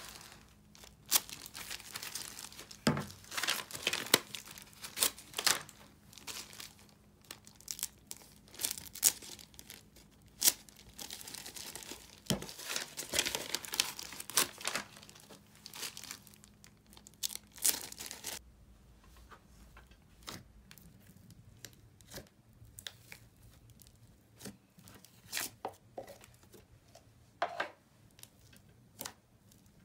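Crinkling and rustling of clear plastic gloves and a packing bag being handled, with a couple of low knocks as slime tubs are picked up and set down. The crinkling stops about two-thirds of the way in, leaving quieter scattered clicks.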